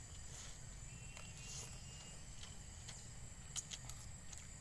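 Steady high-pitched drone of insects, with a few short sharp clicks a little after three and a half seconds in.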